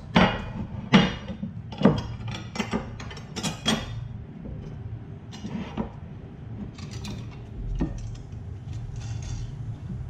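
Steel subframe brace and sway bar brackets clinking and knocking against loose bolts and the wooden workbench as they are handled and the nuts are started by hand. Sharp clinks come thick and fast at first, then give way to softer handling noise.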